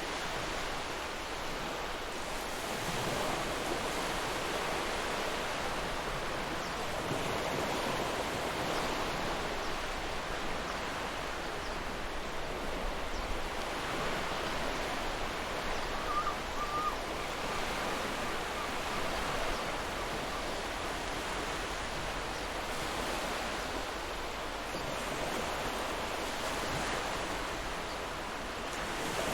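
Ocean surf: a steady wash of waves that swells and eases every few seconds.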